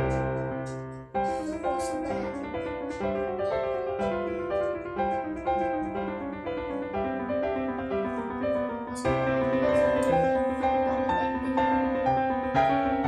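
Background piano music: a melody of played notes that dips briefly about a second in and then carries on.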